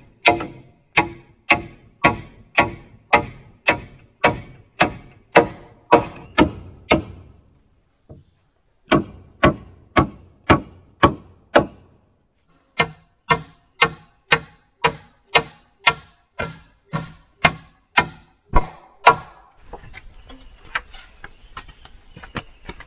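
A tool striking wood in steady repeated blows, about two a second, in three runs with short pauses. This is woodwork on the poles and beam of a cooking-shelter frame. The blows stop a few seconds before the end, leaving faint insect and forest background.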